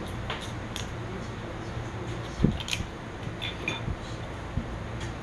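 Plastic makgeolli bottle being handled and poured into a metal bowl: a few small clicks, a sharper knock about halfway through and light metallic clinks, over a steady low background hum.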